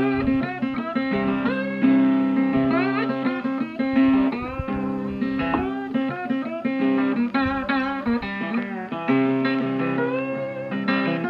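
Background music: a plucked guitar melody with sliding, bending notes over steady sustained low notes.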